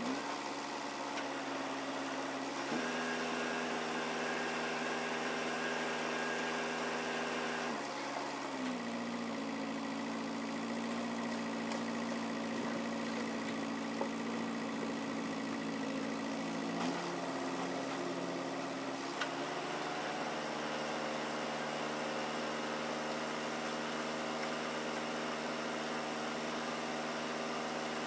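Engine of a crane truck running steadily under the load of its UNIC truck-mounted crane, its pitch shifting up and down several times as the boom is worked.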